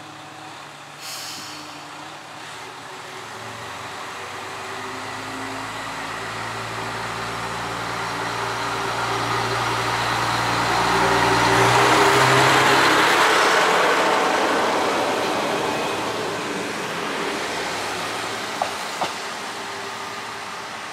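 MRT300-series diesel railcar pulling away from a station stop, its engine pulling hard and the running noise of wheels on rail growing louder as it passes close by, then fading as it draws away. A short hiss comes about a second in, and two sharp clicks come near the end.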